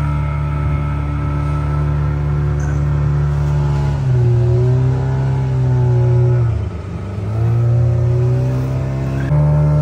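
Fishing boat's engine running under way with a steady drone; about six and a half seconds in it drops in pitch and loudness briefly, then picks back up.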